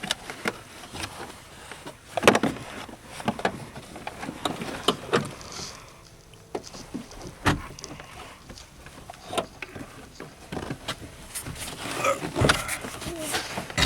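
Irregular clicks, knocks and rustling as a car's rear seat belt retractor assembly is handled and worked into place by hand. There are louder knocks about two seconds in, in the middle, and near the end.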